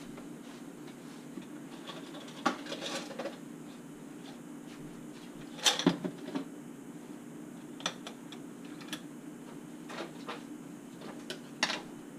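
Wooden-handled paintbrushes clattering against each other and their jar as they are picked through. The sound comes as scattered sharp clicks and short rattles, loudest about six seconds in, over a steady low hum.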